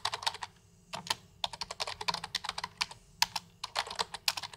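Typing on a computer keyboard: quick runs of key clicks broken by short pauses, with a brief break about half a second in.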